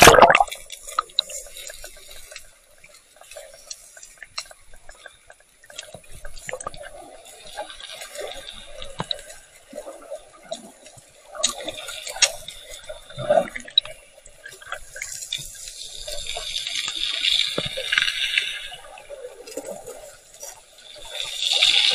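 Underwater sound picked up by an action camera in its waterproof housing: muffled water movement with scattered clicks and knocks. It swells into louder swishing, bubbling water a little past halfway and again at the very end.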